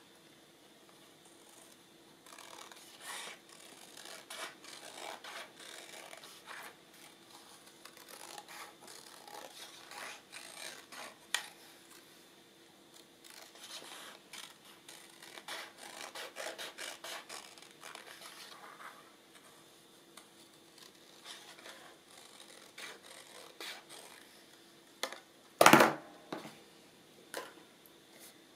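Scissors cutting paper in runs of quick snips, with paper rustling between the cuts. One loud knock near the end, as of something set down hard on the table.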